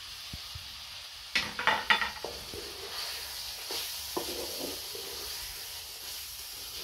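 Goat liver sizzling in a metal pot while a wooden spoon stirs in freshly added ground spices, with a cluster of scrapes and knocks against the pot about one and a half to two and a half seconds in.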